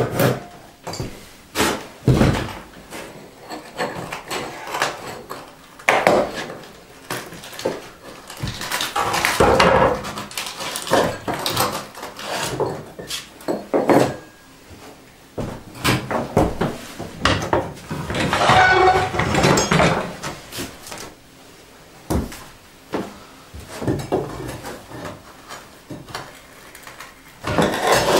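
Irregular wooden knocks and scraping from hand work on old floorboards, ending with a steel pry bar scraping and levering at a wooden skirting board.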